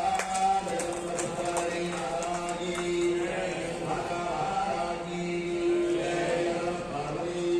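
Hindu mantras being chanted in long, held tones, as in a Chandi homam fire ritual. A quick run of light clicks sounds under the chant in the first few seconds.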